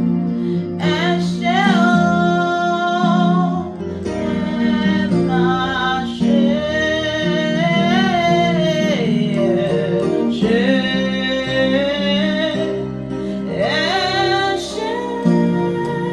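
Worship music: a singer holding long, wavering sung notes without clear words over a steady chord backing with guitar.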